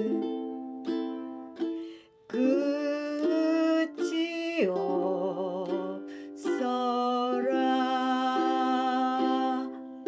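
Ukulele fingerpicked in a three-beat waltz pattern, thumb then index twice, playing the outro of the song. A voice holds long notes over it, gliding between pitches.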